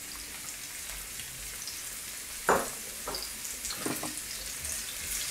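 Onion strips and sliced garlic frying in hot olive oil in a frying pan, a steady sizzle. A sharp knock about halfway through and a couple of lighter knocks after it.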